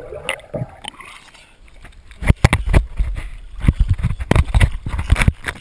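Pool water splashing and slapping against a hand-held waterproof camera as it breaks the surface. It is quiet and muffled at first, then from about two seconds in comes a rapid, irregular run of sharp splashes and knocks.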